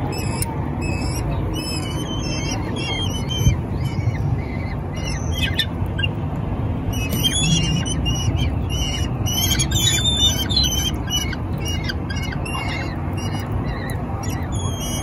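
Several kestrel chicks giving high, shrill begging calls in quick series of short notes, often overlapping, busiest from about seven to eleven seconds in. A steady low background rumble runs underneath.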